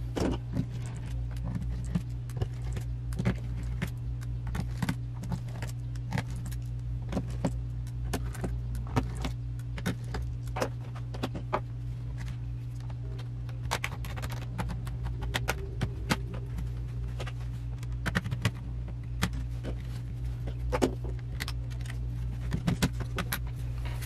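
Lenovo laptop's plastic bottom cover being pried off with a plastic pry tool: irregular sharp clicks and snaps as its clips let go, over a steady low hum.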